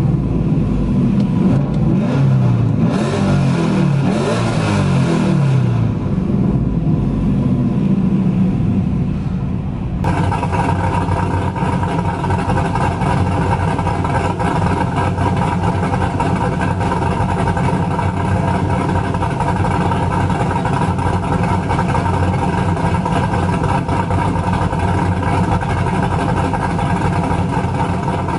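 Cammed 2000 Pontiac Trans Am WS6's LS1 V8, with a Brian Tooley Stage 4 camshaft and longtube headers into a Borla catback exhaust, idling cold. For the first ten seconds its speed rises and falls; after an abrupt change it runs at a steady idle.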